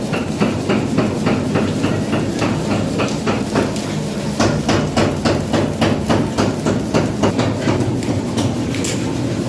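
Repeated hammer blows on metal, about three a second, with the middle stretch strongest, over a steady machine hum.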